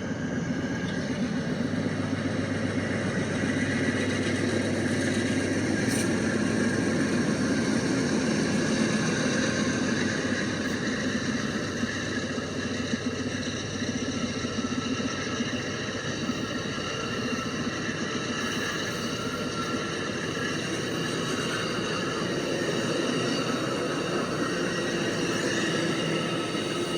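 Amtrak train running steadily, a constant mechanical rumble with several steady tones over it.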